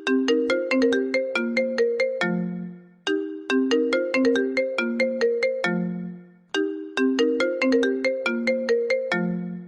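Smartphone ringtone: a short melody of quick notes, each phrase ending on a held low note, repeating about every three and a half seconds, three times.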